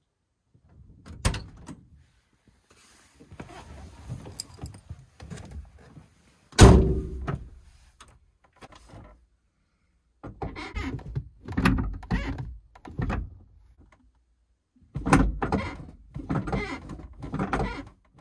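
A VW Transporter T3's door shutting with a heavy thunk about six and a half seconds in, the loudest sound here. Around it are smaller knocks, a sharp one about a second in, and rustling and clattering as someone settles into the driver's seat.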